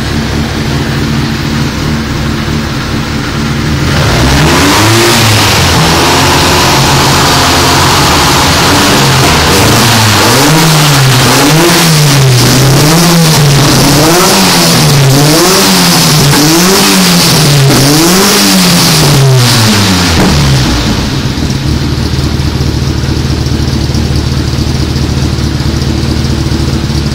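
Small car engine idling, then revved repeatedly from about four seconds in, the revs rising and falling roughly once a second. About twenty seconds in it drops back to a steady idle.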